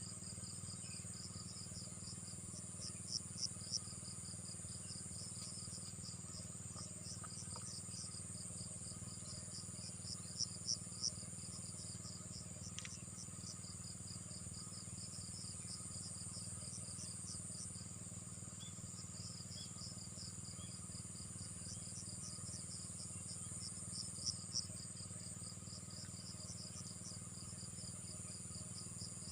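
Insects, crickets by their sound, chirping: a steady high-pitched trill with a fast pulsed chirping beneath it, and three louder runs of three chirps each, near the start, about a third of the way in and near the end. A steady low hum runs underneath.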